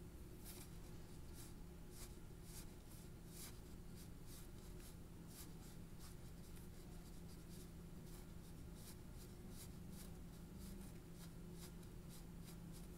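Light, short scratchy strokes of a fine colouring tool on drawing paper, irregular, about one or two a second, over a faint steady low hum.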